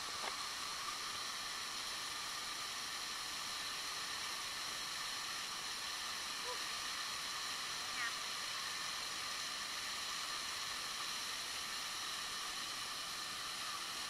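Steady rush of a waterfall heard from just behind its falling curtain of water, with a short faint chirp about eight seconds in.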